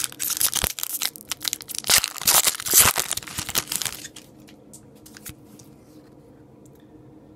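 Foil wrapper of a hockey card pack being torn open and crinkled: a dense crackling rip lasting about four seconds, loudest near the end, then a few faint clicks as the cards are handled.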